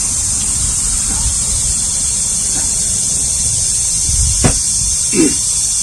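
Steady high hiss of a summer insect chorus, with wind rumbling on the microphone. Near the end a short click and, just after it, a brief low murmur.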